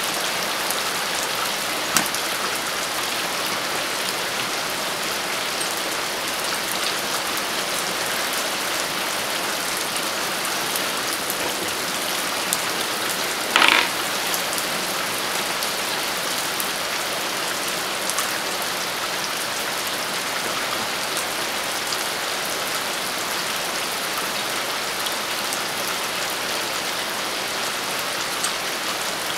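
Steady rain falling, an even hiss. There is a sharp click about two seconds in and a brief louder noise about halfway through.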